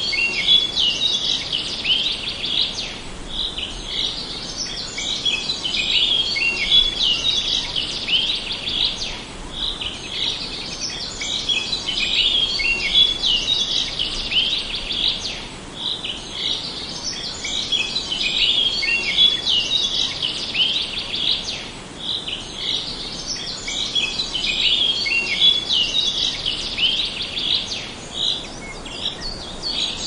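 Many small birds chirping and twittering together in a dense, continuous chorus of quick high notes, swelling and easing about every six seconds.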